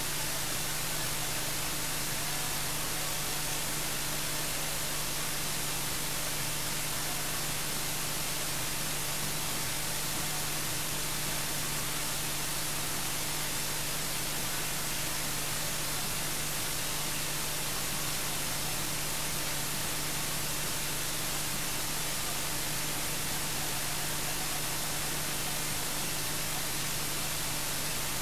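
Steady electronic hiss, like static, with a faint constant hum underneath; nothing else is heard over it.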